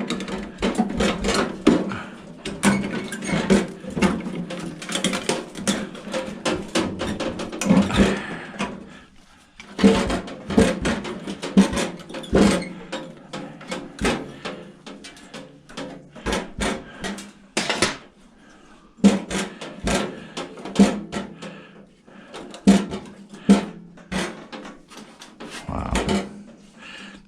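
Irregular metallic clanks, knocks and rattles of hand tools working on an old microwave oven's sheet-metal chassis, with a steady low hum underneath.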